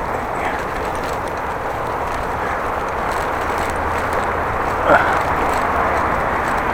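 Bicycle ride heard from the bike: steady wind and tyre noise with a faint, regular ticking from the bicycle, a ticking that an earlier repair has not cured. A short sliding tone about five seconds in.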